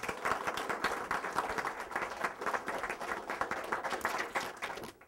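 Audience applauding: dense clapping from many hands that dies away near the end.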